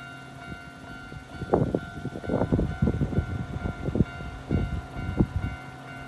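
Railway level-crossing warning bell ringing steadily while the barriers are down. From about one and a half seconds in to near the end it is overlaid by a run of loud, irregular knocks, heaviest in the low range.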